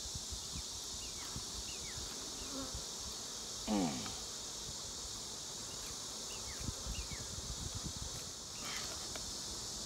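Honeybees buzzing steadily around an opened, crowded hive. About four seconds in, the heavy wooden hive box gives a short creak that falls in pitch as it is tipped back, and a few light knocks of handling follow.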